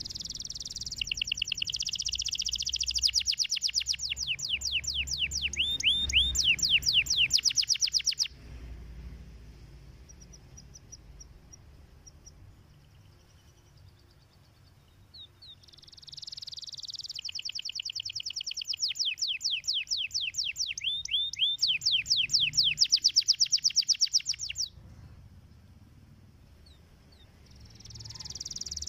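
Domestic canary singing: two long songs of very fast trills and quick sweeping notes, each lasting about eight seconds, with a quieter gap of scattered faint notes between them, and a new song starting near the end.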